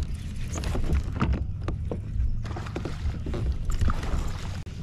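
A baitcasting reel is cranked from a fishing kayak while a hooked bass is played in, giving scattered short clicks and knocks. Under them runs a steady low rumble of water and handling on the hull.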